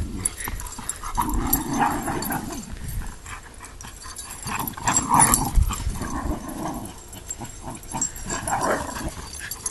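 Two small dogs playing chase, making scattered growls, yips and whimpers in irregular bursts.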